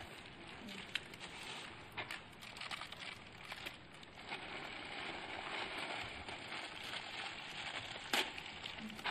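Plastic carry bag and plastic-wrapped packets crinkling and rustling as items are taken out and handed over, with scattered small ticks and one sharper tick about eight seconds in.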